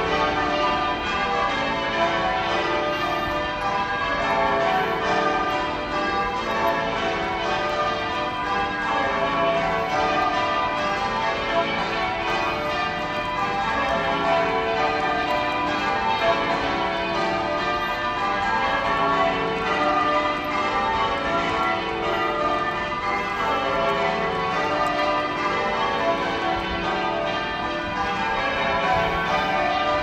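Manchester Cathedral's ring of tower bells being rung full circle in English change ringing: a continuous stream of overlapping bell strikes at different pitches, with no pause.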